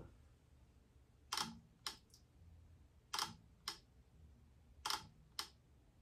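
Leaf shutter of a first-generation Hasselblad XCD 21mm lens on an X2D body, fired three times at 1/30 s: each release is a pair of sharp clicks about half a second apart. This is the normal operating sound of this shutter.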